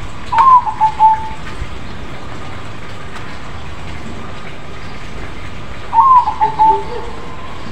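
Crossbred zebra dove (perkutut) cooing twice, about six seconds apart. Each song phrase is a sharp opening note followed by about four quick, clipped coos.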